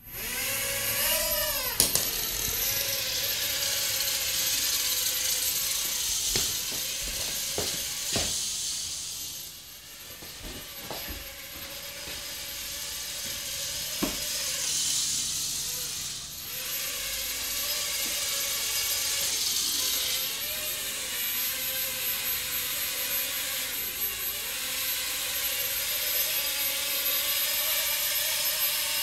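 Tiny nano quadcopter's motors and propellers buzzing steadily, with a whine that rises and falls as the throttle changes, dropping away briefly a couple of times. A few sharp knocks stand out over the buzz.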